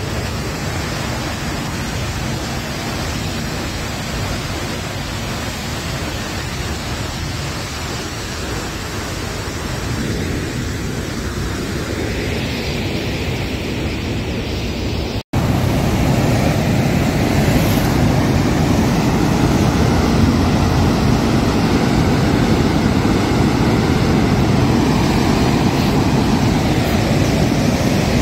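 Steady rushing of turbulent white water discharging below a dam barrage. It breaks off for an instant about halfway through and comes back louder.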